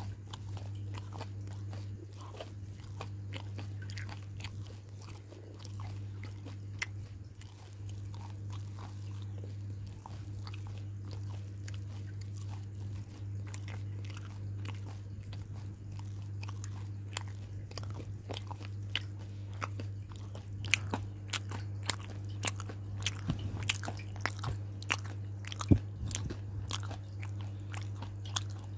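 Close-up crunching and chewing of something dry and crumbly, with many sharp crackling bites that come thicker and louder in the last third. A steady low hum runs underneath.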